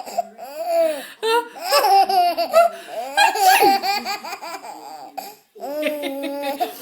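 Baby laughing in quick runs of high-pitched giggles, with a brief pause about five and a half seconds in.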